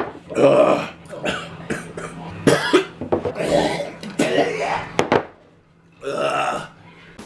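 A man gagging, burping and coughing as his stomach turns on the food, in a string of throaty bursts with a short pause about five seconds in, then one more.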